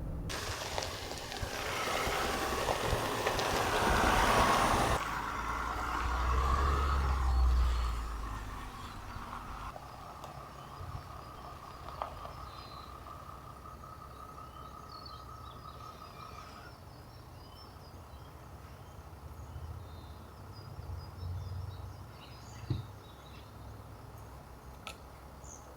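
A vehicle's low rumble with a loud rushing noise over it for the first several seconds, dying away by about eight seconds in. After that the air is quiet, with birds chirping here and there.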